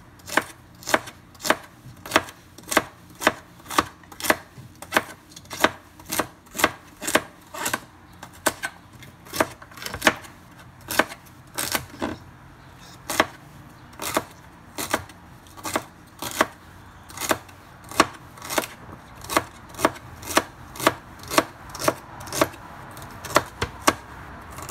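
Large kitchen knife chopping celery on a wooden cutting board: a steady run of sharp knocks, about two a second.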